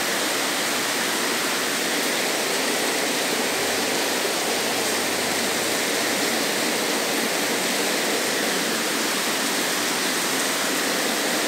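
Heavy rain pouring down, heard from inside the building as a steady, unbroken hiss.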